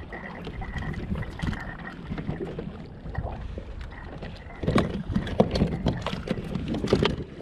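Wind and water noise around a fishing kayak at sea. From about two-thirds of the way in comes a quick run of knocks and clatter on the kayak.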